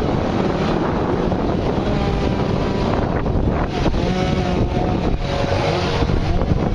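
Several gas chainsaws running at once, their engine pitch rising and falling as the carvers cut.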